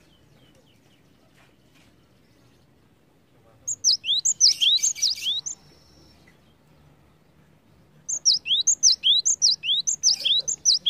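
Cinereous tit singing: two bursts of quickly repeated high two-part notes, a falling whistle followed by a rising one, about three phrases a second. The first burst starts a little over three seconds in and lasts about two seconds; the second starts around eight seconds in.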